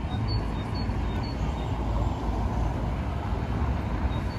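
Cars driving across a paved city square: a steady wash of engine and tyre noise with low rumble. A few short, high chirps sound over it in the first second and a half and again near the end.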